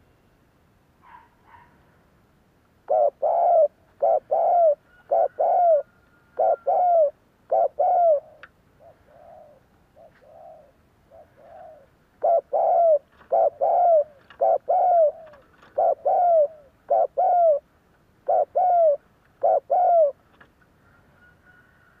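Spotted dove cooing in two long runs of rapid coo notes, each note dipping in pitch. The first run starts about three seconds in and tails off into a few softer coos, and the second runs from about twelve to twenty seconds in.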